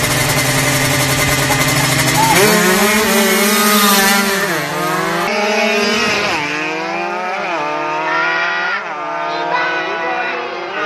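Drag-racing motorcycle engine held at steady high revs at the start line, then launching and accelerating hard. Its pitch climbs and drops back at each of several gear changes.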